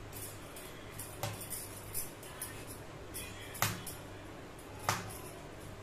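Glass bangles clinking in a few light, sharp clicks as hands pinch off and roll balls of dough, over a faint steady low hum.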